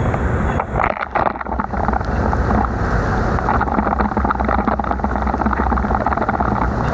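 Wind rumbling on the microphone over a steady hiss of riding a bicycle through heavy rain on a wet road, with a brief dip about a second in.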